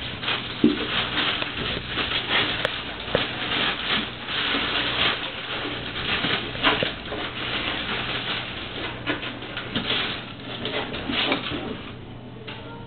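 Plastic bag crinkling and rustling in quick, irregular bursts as ferrets burrow into it and push it across a tile floor. It eases off near the end.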